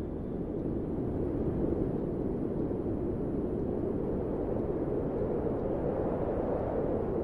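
A steady, low rushing noise with no tune, pitch or rhythm.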